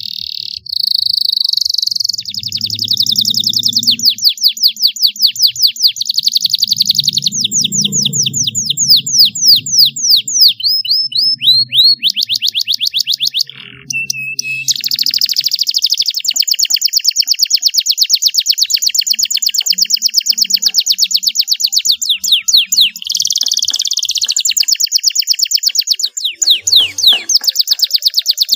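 Domestic canary singing a long song of rapid trills: runs of quickly repeated sweeping notes that change speed from one run to the next. There is a brief break about halfway through, with a single held note.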